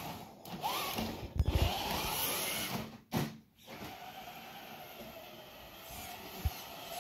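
Traxxas TRX-4 RC crawler's electric motor and geared drivetrain whining as it drives, the pitch rising as the throttle is applied and then holding steadier in the second half. A few knocks are heard, the loudest about three seconds in.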